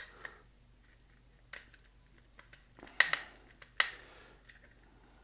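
A few sharp clicks and clinks of small screwdriver bits being handled and swapped in a precision driver. The loudest are a close pair about three seconds in and one more a moment later.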